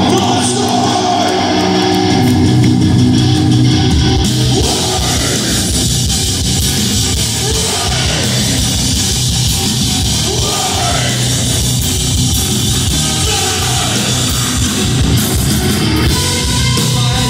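Heavy metal band playing live and loud over a PA: electric guitars, bass and drum kit, with a singer's vocals. Fast drumming comes in about four seconds in.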